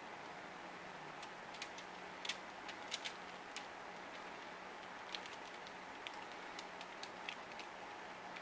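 Acrylic paint dripping off the edges of a tilted canvas onto the covered table below: scattered light ticks and taps over a steady faint hiss.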